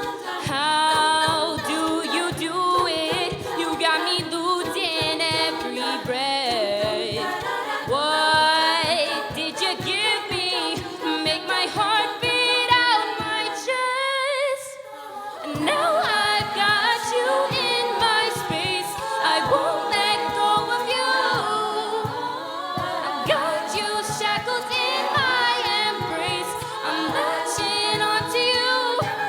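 Women's a cappella group singing: layered voices in close harmony over a steady vocal-percussion beat. The sound thins out briefly about fourteen seconds in.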